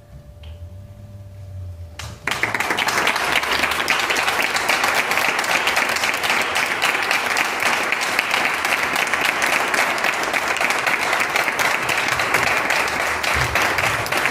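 Audience applause: after about two seconds of near quiet with a low hum, the clapping breaks out suddenly and carries on loud and steady as the performers take their bow.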